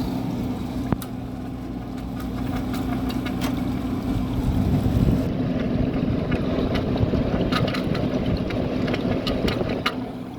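GE 6,000 BTU wall air conditioner running: a steady motor hum with the whoosh of its fan, and scattered faint ticks.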